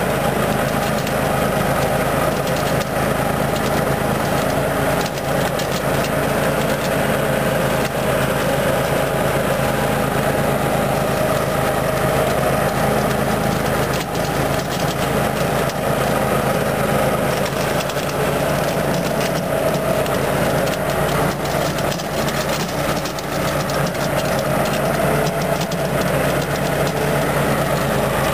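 Walker riding mower running steadily while mowing grass: a constant engine note with the cutting deck going, holding an even level throughout.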